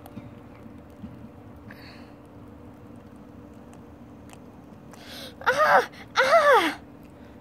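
Faint steady background with a few light handling clicks, then a high voice lets out two loud wailing sobs, each rising then falling in pitch, about five and six seconds in.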